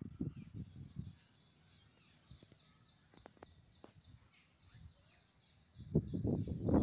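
Outdoor ambience: faint, steady high chirping of insects and birds, with a few soft ticks. Bursts of low rumbling noise in the first second and again near the end, the loudest sound here.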